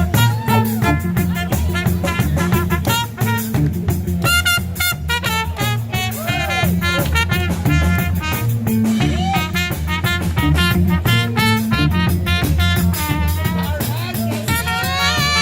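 Live reggae band playing, with a trumpet soloing in bending, scooping phrases over a repeating bass line and drum kit.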